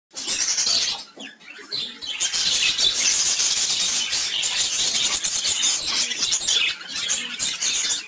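Caged budgerigars chattering: a dense run of high, scratchy chirps and warbles, with a brief lull about a second in.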